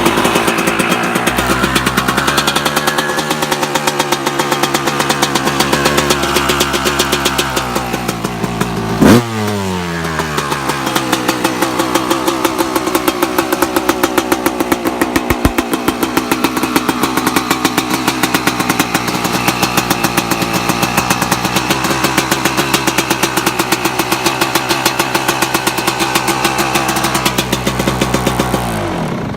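2011 Yamaha YZ250 single-cylinder two-stroke with a Pro Circuit expansion pipe, running cold on the choke. About nine seconds in it is blipped once and its pitch glides back down to a steady idle; near the end the engine dies away as it is shut off.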